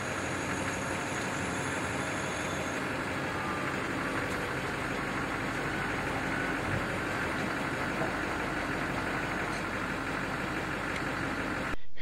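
Pickup truck engine idling steadily, cutting off suddenly near the end.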